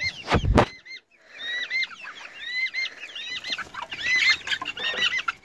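Young silkie chickens peeping over and over in short, high, hooked calls. There is a loud thump about half a second in and a brief gap just after it.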